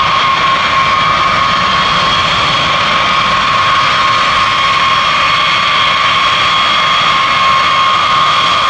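B-52H Stratofortress taxiing on its eight Pratt & Whitney TF33 turbofan engines: a loud, steady jet whine with a strong high tone.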